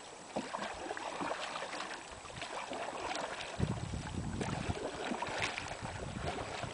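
Canoe paddles dipping and stroking in lake water, faint, with small splashes and ticks. Wind rumbles on the microphone from about halfway through.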